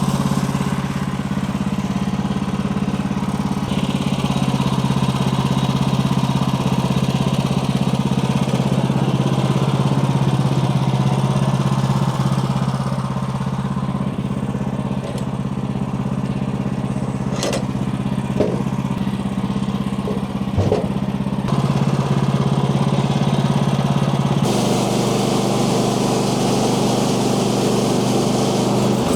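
Kohler gasoline engine of a portable bandsaw mill running steadily, with a few short knocks in the middle.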